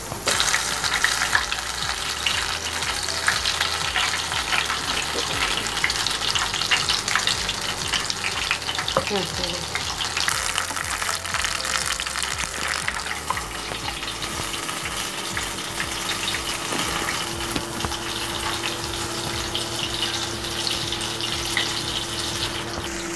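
Besan-battered brinjal pakoras deep-frying in hot oil in a kadhai: a steady sizzle with many small crackles, loudest in the first couple of seconds as fresh pieces go into the oil.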